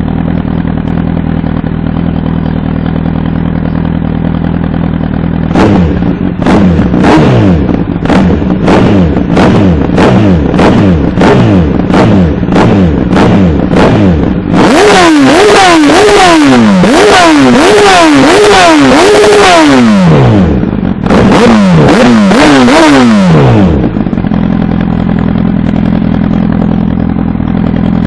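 Honda CBR1000RR SC57 inline-four on a Scorpion aftermarket exhaust, idling, then revved in a string of quick throttle blips about two a second, then in longer revs with the pitch rising and falling over and over, with a brief break in the middle, before settling back to idle near the end.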